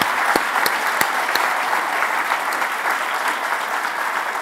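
A large audience applauding steadily as a speech ends.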